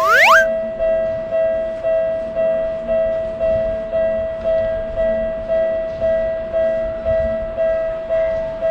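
Japanese railroad-crossing warning bell ringing steadily, a single high electronic tone struck about twice a second with each strike fading. A short rising swoop sounds at the very start.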